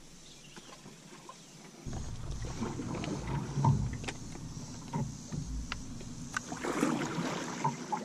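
A small metal boat being paddled: paddle strokes in the water and scattered knocks of the paddle and gear on the hull, starting about two seconds in over a low rumble.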